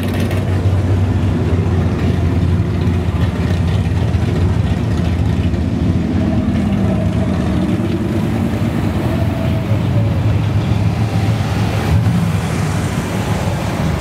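Classic cars and muscle cars cruising slowly past one after another, their engines running with a steady low rumble.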